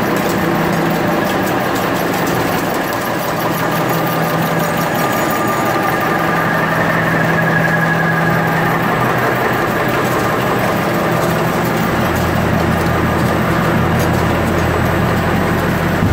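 Automatic napkin folding and packaging machines running: a continuous rapid mechanical clatter over a steady motor hum, with a deeper hum coming in about twelve seconds in.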